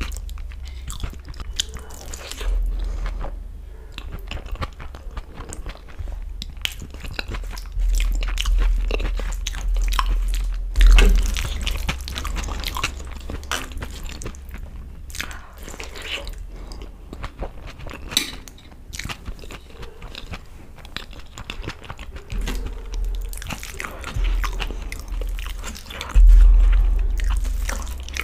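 Close-miked eating sounds of dal and rice eaten by hand: wet chewing, lip smacks and small clicks, with the squish of fingers mixing soft rice on a steel plate. A few louder low thumps stand out, one about 11 seconds in and one near the end.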